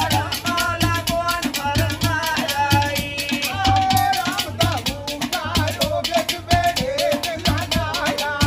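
Punjabi folk mahiye singing: men's voices carry a bending melody over a steady drum beat and busy rattling percussion.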